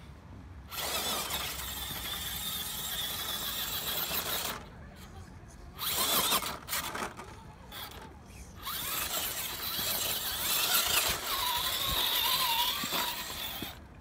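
Electric motor and gear drivetrain of a scale RC rock crawler whining in several bursts of throttle as it climbs rock, the pitch wavering with load.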